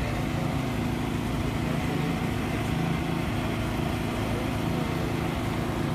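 An engine running steadily, a constant drone without change in speed.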